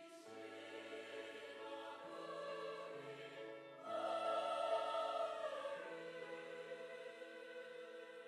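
Church choir singing a hymn in sustained chords. It grows suddenly louder about four seconds in, then eases off on long held notes.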